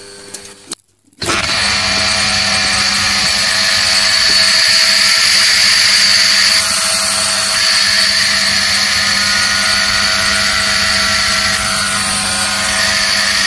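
Texmo 2 HP submersible motor running unloaded on a test, out of the borewell and without its pump stages fitted: a loud, steady electric motor hum and whine that comes in about a second in.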